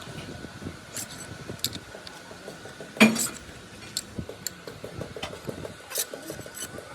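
Scattered metal clinks and knocks of tools and parts being handled. The loudest is a ringing knock about three seconds in, over a faint steady whine.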